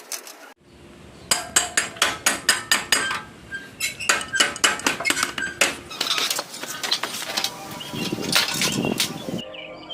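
Quick runs of hammer blows on metal, about four to five strikes a second, with a rougher stretch of noise near the end.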